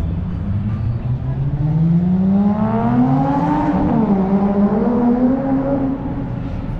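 A car engine accelerating past, its pitch climbing, dipping briefly at a gear change a little after four seconds in, then holding level before fading away.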